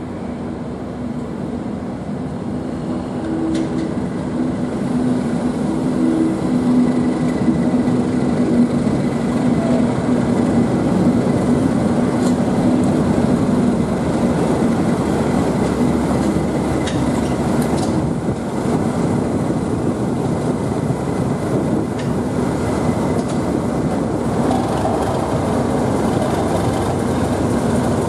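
English Electric Class 37 diesel locomotive 37421 running through a station with a test train, its V12 diesel engine drone growing louder from a few seconds in as it draws near, then holding steady, with a few clicks of wheels over the rails.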